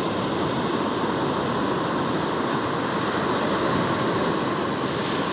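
Steady rushing of rough surf breaking on a sandy beach, mixed with wind blowing across the microphone.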